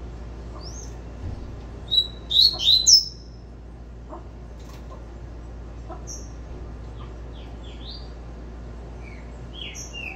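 Caged double-collared seedeater (coleiro) singing its 'tui-tui' song type: a loud run of quick, sharp, descending high chirps about two seconds in, then scattered short notes.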